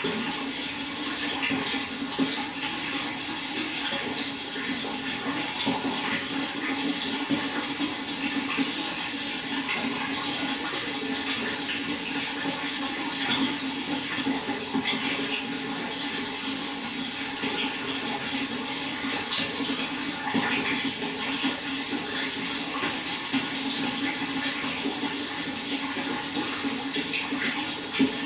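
Steady running water, splashing continuously without a break.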